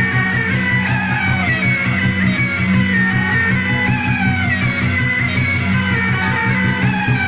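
Suona (Chinese shawms) playing a sliding, wavering melody over a fast, even beat of drums and cymbals: a Taiwanese beiguan-style drum troupe (大鼓弄) playing in a temple procession.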